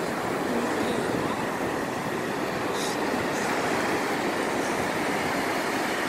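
Ocean surf breaking and washing up over a sandy beach, a steady even noise of waves and foam.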